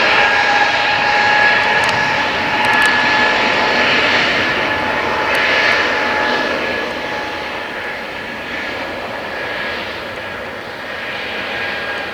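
Airbus A320neo's CFM LEAP-1A turbofans at takeoff thrust: a loud rushing jet roar with a steady high whine, slowly fading over the second half.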